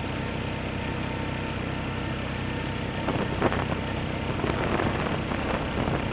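Small gasoline engine running steadily, with a series of knocks and rattles from about three seconds in.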